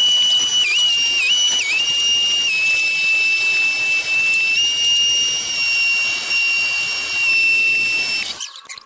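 High-speed electric power tool running with a steady high-pitched whine, its pitch dipping briefly three times early on as it takes load, then shut off near the end.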